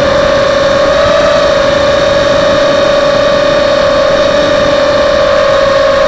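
FPV quadcopter's four SunnySky X2204 2300KV brushless motors spinning 5x3 props, a loud steady whine heard from the onboard camera, its pitch rising slightly about a second in, over a rush of air noise.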